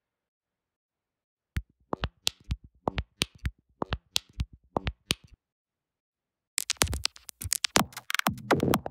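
Electronic click-and-glitch percussion loops previewed one after another. A sparse pattern of short, sharp clicks and ticks comes in after a short silence and stops, then a denser, busier run of glitchy clicks starts near the end.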